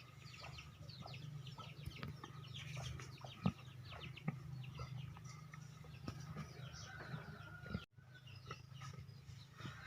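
Faint fowl-like clucking and chirping calls over a steady low hum, with one short sharp sound about three and a half seconds in.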